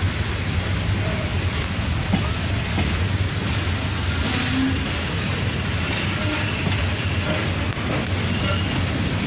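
Passenger train running, with a steady low rumble that holds even throughout.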